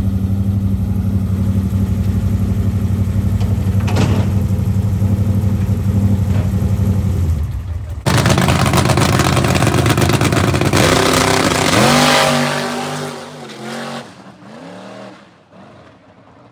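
A vehicle engine droning steadily and evenly. About eight seconds in, the sound cuts to a loud engine whose pitch sweeps and then falls away as it passes and fades out.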